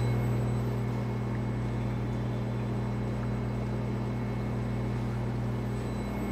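Steady drone of the wall-test chamber's equipment running: a low hum with a hiss over it.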